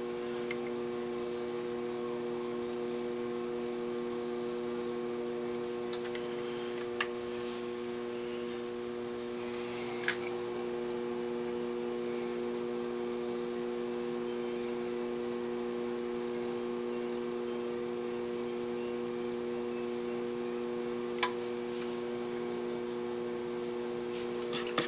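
Electric potter's wheel motor running with a steady hum of several pitches, a few short clicks along the way.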